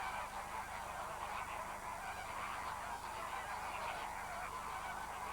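A large flock of greater flamingos calling all at once: a steady, dense din of overlapping goose-like honks.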